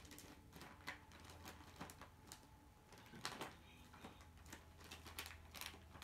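A Norwegian Forest Cat rummaging in a leather bag: scattered small rustles, scratches and taps as it paws and noses at the contents, a little louder about three seconds in, over a faint steady hum.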